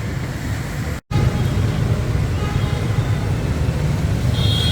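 Road traffic of motorbikes and cars, a steady low engine rumble. The sound cuts out for an instant about a second in, and a short high-pitched horn beep sounds near the end.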